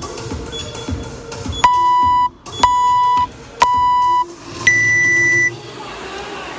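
Gym interval timer's start countdown: three beeps a second apart, then one longer, higher beep that signals the start of the workout.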